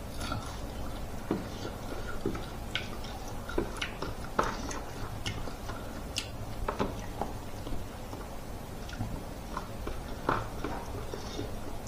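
Close-up chewing and mouth smacking while eating grilled smoked pork and rice by hand: irregular wet clicks and smacks, a few every second or two.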